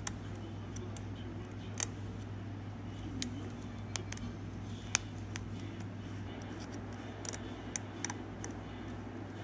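Irregular sharp little clicks of a small Phillips screwdriver working a tiny screw out of an iPhone 5C's logic board, the metal tip and screw ticking against the phone's frame, over a steady low hum.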